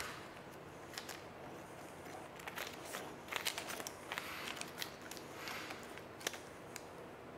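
A small brass gate valve being threaded by hand onto a 3/4 inch pipe nipple: scattered clicks and scraping of the fittings being turned and handled, busiest in the middle.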